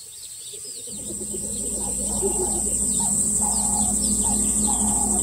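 Dusk bush ambience fading in: a steady high insect trill, likely crickets, with short repeated bird chirps and calls over it. A low steady hum comes in about a second in.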